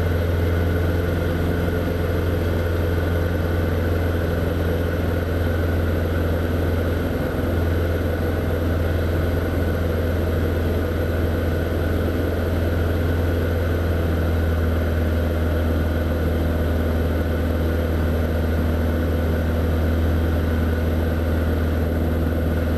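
Light single-engine propeller aircraft in cruise flight: engine and propeller droning steadily with a deep, unchanging hum, heard from inside the cockpit.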